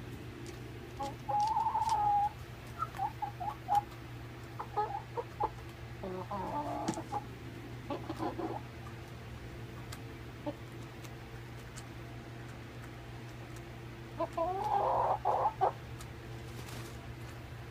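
Young Rhode Island Red hens clucking softly in short bouts, with one drawn-out call about a second in and a busy cluster of clucks near the end. A steady low hum runs underneath.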